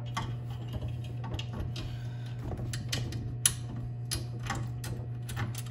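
Irregular light clicks and taps of a screw and metal rail being handled against the stool's metal tube frame while the holes are lined up, the sharpest tap about three and a half seconds in. A steady low hum runs underneath.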